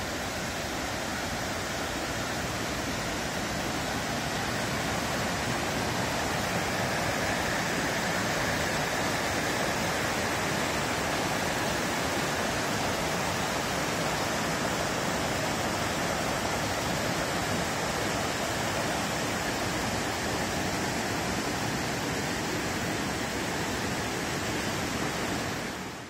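Rocky forest stream in spate, water rushing and tumbling over boulders in a steady, full rush that fades out at the very end.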